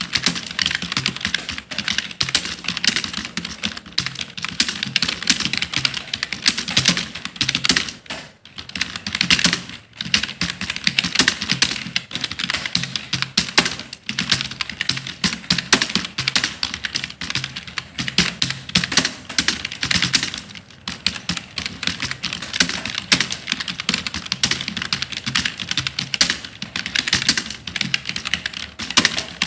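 Fast, continuous typing on a computer keyboard: a dense run of key clicks, with a brief pause about eight seconds in.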